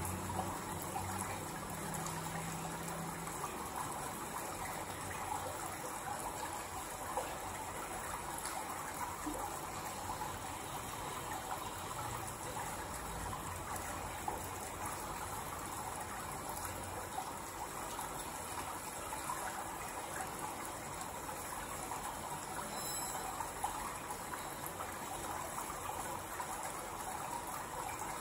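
A steady rushing sound like flowing water, with a few faint ticks scattered through it.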